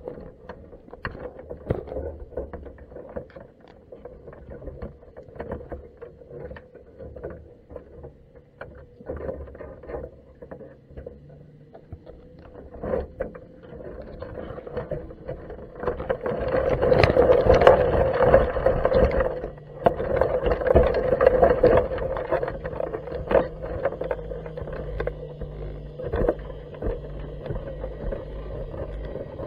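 Underwater sound from a camera inside a crab pot: scattered clicks and knocks against a water hiss, then from about sixteen seconds in a louder rushing, churning noise as the pot is hauled up off the sea floor, with a steady low hum underneath.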